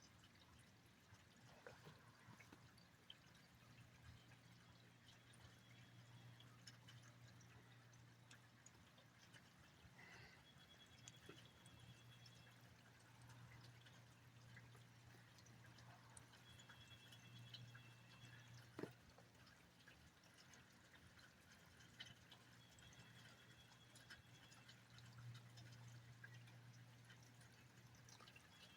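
Near silence: faint rain pouring and dripping, with scattered small drip ticks.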